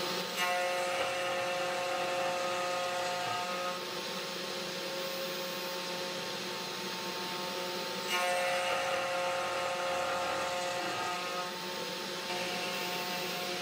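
Desktop CNC router milling acrylic plastic with a 2.5 mm two-flute end mill: a steady motor whine over a rough cutting hiss. The cut grows louder about half a second in and again about eight seconds in, as the cutter runs across the rod.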